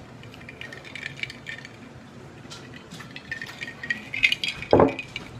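Light clicking and rattling of things being handled on a table, with one louder knock shortly before the end.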